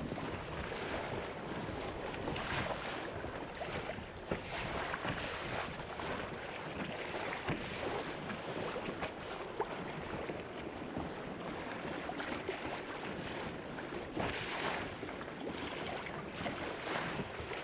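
Sea water splashing and washing against a fishing kayak's hull as it moves across the cove, with wind buffeting the microphone. Irregular small splashes come and go over a steady rush.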